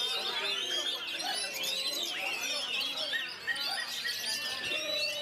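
Several caged oriental magpie-robins singing at once, a dense, unbroken tangle of overlapping whistles, trills and sweeping notes.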